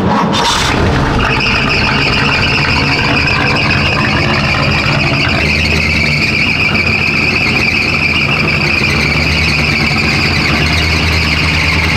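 Small-block Chevrolet 350 V8 catching right at the start and then running steadily, a low engine note with a steady high-pitched squeal over it.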